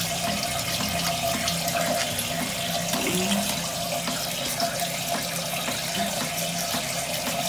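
Tap water running steadily.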